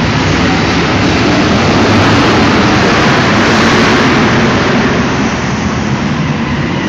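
BriSCA F1 stock cars' V8 engines racing around an indoor arena track, a loud dense engine noise that builds towards the middle and eases off a little near the end.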